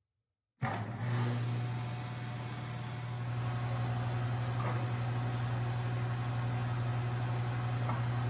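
Grizzly jointer switched on: the motor and cutter head start about half a second in and come up to speed, then run with a steady hum.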